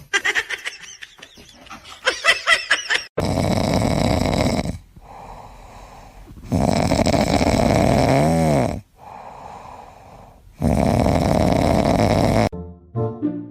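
A pet snoring loudly: three long snores about four seconds apart, with quieter out-breaths between. Short high, wavering sounds come before the first snore.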